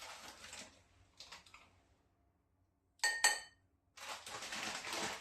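A metal spoon clinks twice against a bowl with a short ringing tone about three seconds in, between soft scraping and rustling sounds of dry flour being spooned and mixed for a gram-flour batter.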